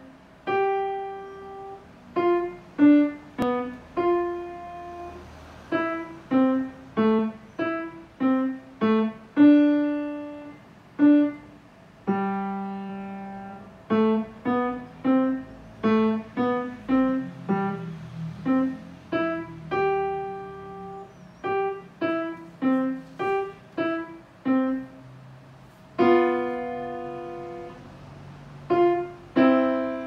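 Kawai grand piano played solo: a simple tune of single struck notes, some held and left to ring, with soft low notes added underneath from about the middle on.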